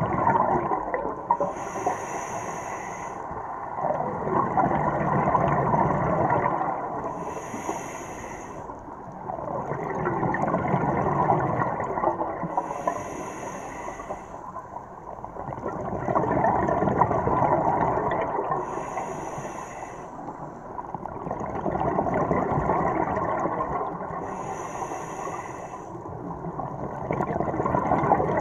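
Scuba diver breathing through a regulator underwater: a short hiss on each inhale, then a long bubbling rush of exhaled air, about five breaths, one every five to six seconds.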